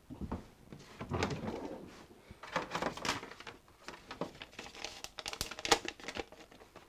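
Irregular rustling and light knocks of handling, as a small item is fetched and picked up.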